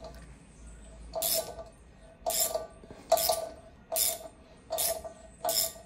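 Socket ratchet clicking in six short bursts, a little over one a second, as it is swung back and forth to turn an 8x1.25 tap through a stripped, oversize thread, cleaning the thread out so that a thread insert can be fitted.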